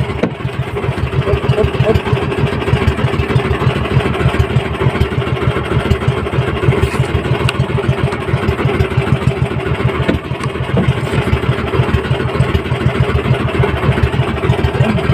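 Small engine of an outrigger fishing boat running steadily, with a rapid, even chug.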